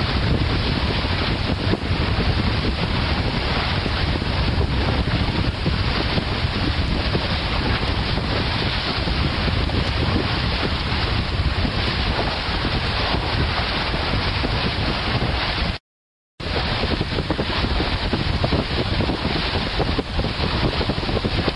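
Strong wind buffeting the microphone over a steady rush of water and spray, with no voices. The sound cuts out completely for about half a second, about three-quarters of the way through.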